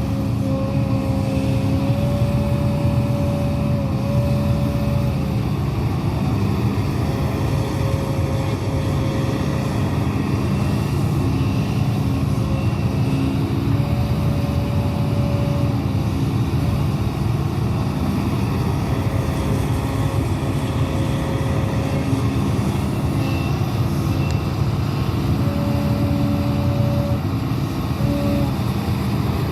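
Hidromek 200W wheeled excavator running steadily, with whining tones that come and go and shift slightly in pitch every few seconds.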